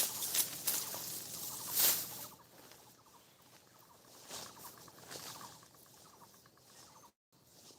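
Dry crackling and rustling, as of dry wheat stalks being handled during harvest: dense and fairly loud for about two seconds, then thinning to faint scattered crackles.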